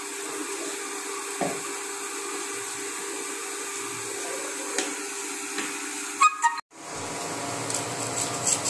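Knife slicing a tomato on a plastic plate: a few soft taps and cuts over a steady background hum and hiss. The sound drops out for a moment about two-thirds of the way through, then the taps continue.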